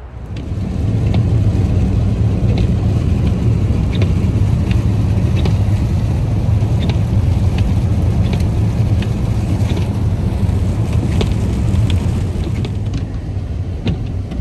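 Steady low road rumble of a moving car, heard from inside, with scattered light ticks and clicks over it.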